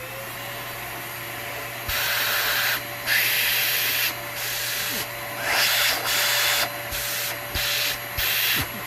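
Aposen H120 cordless stick vacuum running in boost mode: a steady high motor whine that steps up in pitch at the start. Over it come several loud bursts of hissing, rushing air, each under a second, as the suction is tried out.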